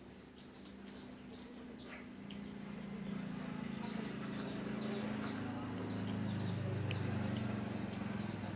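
Small birds chirping over and over in short, falling notes, while a low engine drone swells from about two seconds in and stays loudest toward the end. A few sharp clicks cut through, the loudest near the end.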